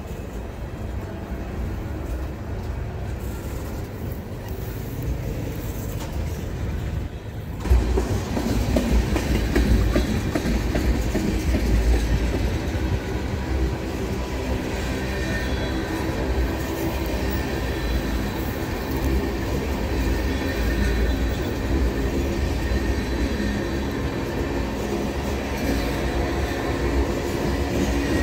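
Freight train tank cars rolling past, steel wheels rumbling and clattering on the rails; the sound jumps suddenly louder about eight seconds in.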